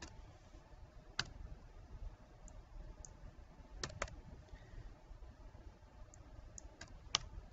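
Faint computer mouse and keyboard clicks while entering values in software: about six sharp, scattered clicks, with two close together near the middle and two more near the end.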